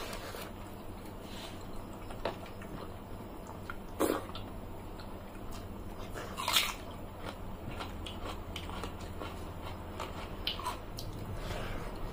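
Mouth sounds of two people eating poita bhat, watery soaked rice, by hand: wet chewing with scattered small clicks. There are a few sharper crisp bites, the loudest about two-thirds of the way through, as a raw onion is bitten.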